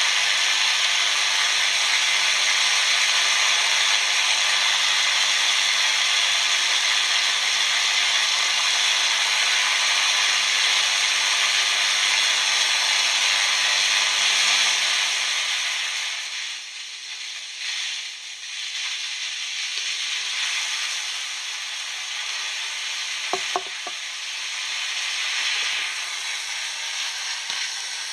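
Electric arc at the tip of an electrode in a cup of salt water, hissing and sputtering steadily with a low electrical hum as the released gas burns in a flame. A little past halfway the hum stops and the hiss drops to a weaker, uneven sputter, with a few sharp clicks near the end.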